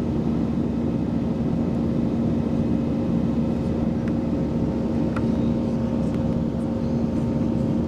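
Airliner cabin noise in flight: a steady rush of engines and airflow with an even low hum, with a few faint ticks about halfway through.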